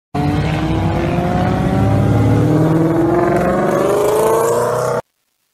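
Car engine accelerating, its pitch climbing steadily in one long pull, then cutting off suddenly near the end.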